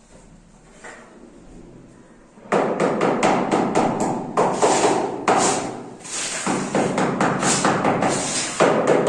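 Rapid, loud hammering and knocking, with scraping between the strikes, starting about two and a half seconds in.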